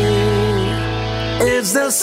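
Rock music with guitar laid over the footage. About a second and a half in, the bass drops out for a moment under a sliding melody line, and the beat comes back at the end.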